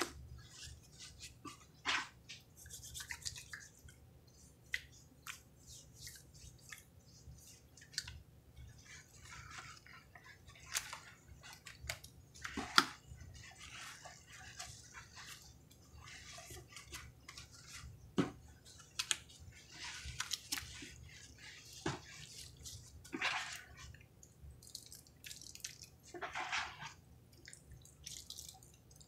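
Wet foam sponges soaked in creamy pine cleaner being pressed and squeezed by hand in a tub: irregular squishing and dripping of the sudsy liquid, with scattered sharp clicks, the loudest a little before halfway.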